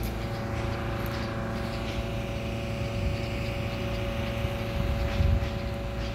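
Steady mechanical hum with several held tones over a low rumble, and a brief low thump about five seconds in.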